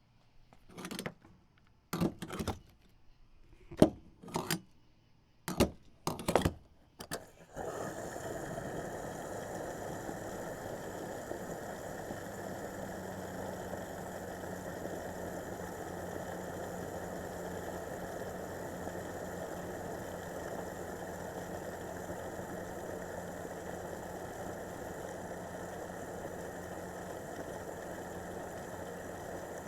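Gas pump fill-up: a series of separate clicks and clunks of the pump nozzle being handled. Then, from about eight seconds in, the pump runs with fuel flowing in a steady whir, and a low hum joins a few seconds later.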